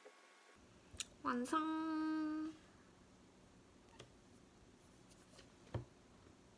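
A woman's short sing-song exclamation, rising and then held for about a second, followed by a few faint clicks and a soft knock near the end.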